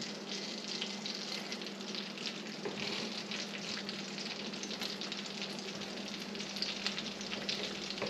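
Garlic frying in butter and olive oil in a cast iron mini wok: a steady sizzle full of small crackles, with a faint low hum beneath.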